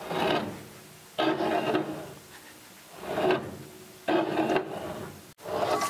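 Front wheel and tire of a 1958 Chevy Apache turned by hand, rubbing and scraping in repeated strokes about once a second as it catches on the tie rod: two washers as spacers are not enough to clear it.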